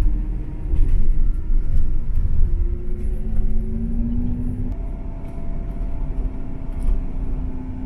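A moving bus's engine and road rumble heard from inside the passenger cabin. The engine note climbs gradually about halfway through, then holds steady.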